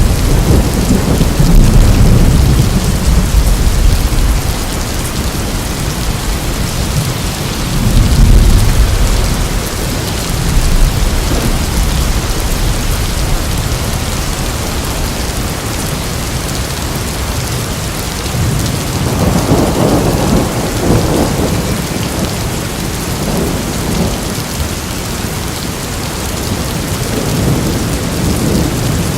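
Thunderstorm: heavy rain falling steadily, with rolling thunder rumbles at the start, again about eight seconds in, around twenty seconds in, and building near the end.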